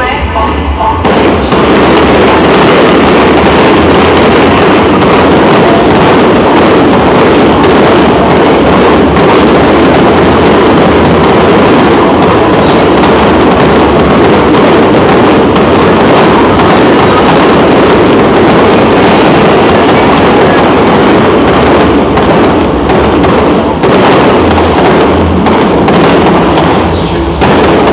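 Aerial fireworks display: a dense, near-continuous barrage of booms and crackling bursts, very loud throughout with only a brief lull near the end.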